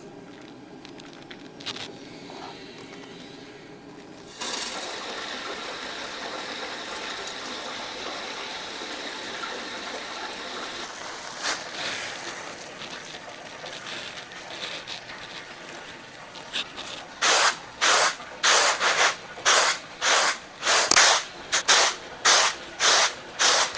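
A few faint knife cuts on a cutting board, then uncooked rice poured from a plastic bag onto a woven bamboo tray with a steady hiss. Near the end comes a run of about a dozen loud, regular swishes, roughly one and a half a second, as the rice is tossed on the tray.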